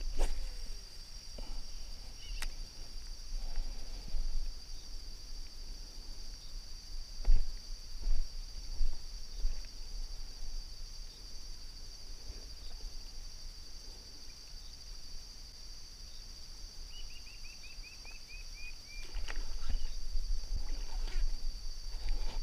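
Insects drone in a steady high-pitched chorus, with low thumps and rumble from handling or wind on the microphone, loudest about seven seconds in. Near the end comes a quick run of short chirps falling in pitch.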